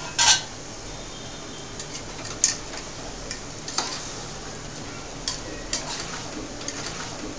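A lid clatters off an aluminium cooking pot just after the start, then a spoon stirs chunks of bottle gourd in the pot, with scattered light clinks of metal against the pot over a low simmering hiss.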